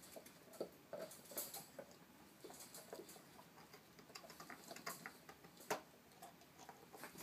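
Faint, irregular clicks and scratchy crunches of a cat gnawing on a shoe, with one sharper click a little after the middle.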